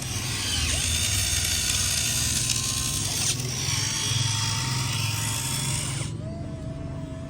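Small electric motor of a radio-controlled model excavator running with a steady buzzing whir, stopping abruptly about six seconds in.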